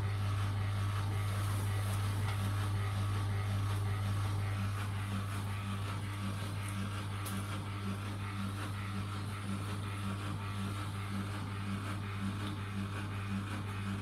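Bendix BIW 103W washing machine's drain pump humming steadily as it empties the drum, a weird noise that the owner puts down to a filter he doesn't think has ever been cleaned. A faint rhythmic pulsing, about twice a second, joins about a third of the way in.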